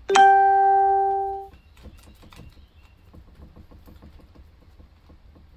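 A single loud ringing tone with a clear pitch, struck sharply and held for about a second and a half before it stops, then faint scattered taps.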